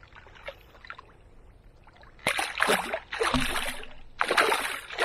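Water splashing and sloshing around a landing net holding a barbel in the river margin, in three loud bursts starting about two seconds in.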